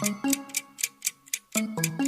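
Light background music with a fast, steady ticking, about five ticks a second, over short changing notes.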